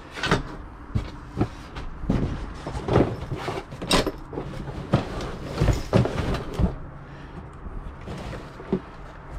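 Objects being handled and shifted about while rummaging through a box of stored belongings: a string of irregular knocks, clunks and rustling, with one sharp clack about four seconds in.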